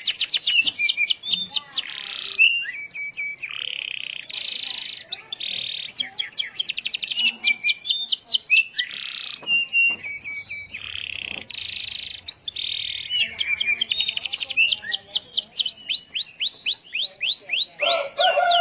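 Canary singing a fast, continuous song. Rapid trills of quickly repeated falling notes alternate with buzzy rolls, and a thin high note is held beneath them.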